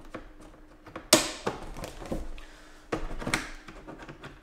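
Hard plastic tool case being handled as an inner tray is lifted: a handful of separate clacks and knocks of plastic on plastic, the loudest about a second in.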